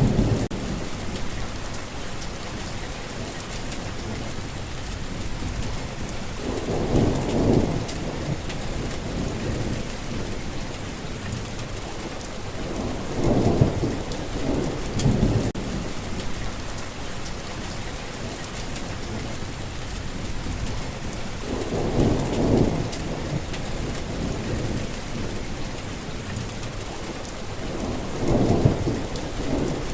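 Rain falling steadily on a forest path, with low rumbles of thunder swelling up about every six to eight seconds, each lasting a second or two.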